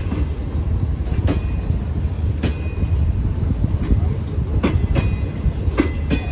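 Train rolling through the station: a steady low rumble with sharp wheel clacks over the rail joints every second or so at uneven intervals.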